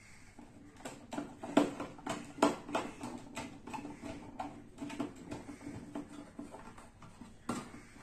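Irregular small clicks and light knocks of electrical wires and small plastic fittings being handled and fitted on a wooden wiring board. The loudest are about one and a half and two and a half seconds in.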